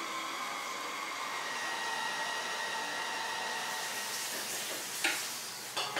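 A small electric motor appliance running with a steady whir, growing brighter partway through, with two short knocks near the end.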